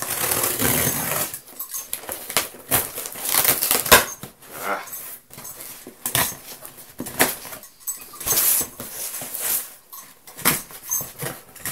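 Cardboard box being slit open with a knife and its packing tape and flaps torn and pulled apart: a longer rip in the first second, then short, irregular rips, scrapes and rustles of cardboard.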